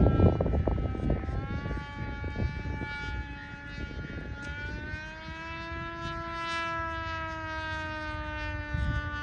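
Quadplane RC aircraft in forward flight, its single T-Motor 2820 880 kV brushless pusher motor with a 12-inch propeller giving a steady whine of several even tones. The pitch shifts slightly about a second in and again around five seconds in. Wind rumbles on the microphone in the first second or so.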